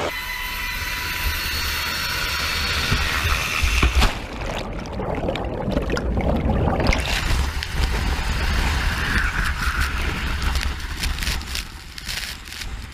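Ocean water splashing and churning at close range, with heavy wind buffeting on the microphone and a loud surge about four seconds in.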